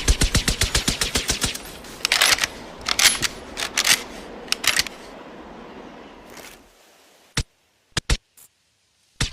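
Sten Mk IIS suppressed submachine gun firing on full auto, about nine shots a second; the burst stops about a second and a half in. Scattered sharp metallic clicks and clatter follow over a fading tail, then a few lone clicks, and a new burst begins at the very end.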